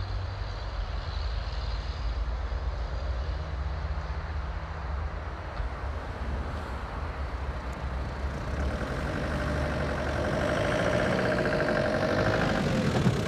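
Vehicle engine idling: a steady low rumble, with a higher wavering tone swelling in over the last few seconds.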